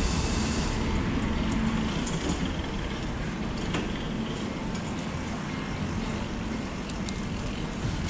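Steady road and traffic noise with a low rumble.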